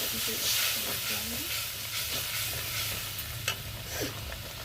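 Spice paste of ginger, cumin, garlic and onion with turmeric frying in hot oil in a kadai, sizzling steadily as it is stirred. A couple of sharp clicks of the spatula against the pan come near the end.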